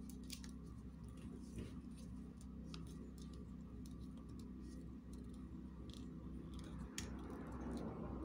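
Light, scattered clicks and small taps from hands handling a small plastic glitter shaker container, over a steady low hum.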